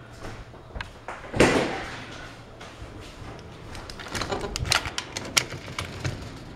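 A metal-mesh screen door being unlatched and opened: a run of sharp clicks and rattles from its latch and frame about four to five and a half seconds in, after a single short loud rustle about a second and a half in.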